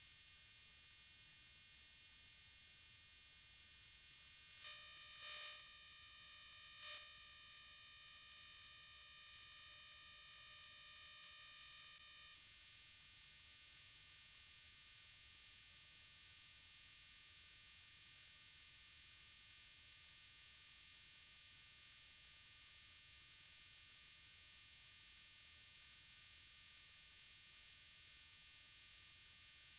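Near silence: a steady faint electronic hiss and buzz, with a few faint clicks about five to seven seconds in.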